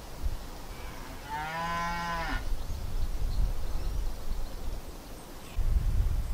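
A cow moos once, a single call of about a second, starting a little over a second in. Wind rumbles on the microphone and grows much stronger near the end.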